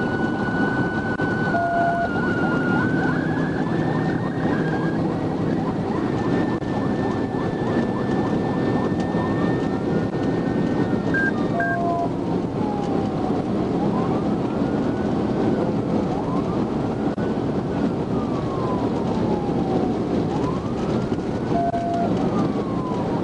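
Police car siren during a high-speed pursuit, over steady road and wind noise. For the first ten seconds or so it holds a steady high tone, then it switches to a slow rising-and-falling wail. Short beeps sound about every ten seconds.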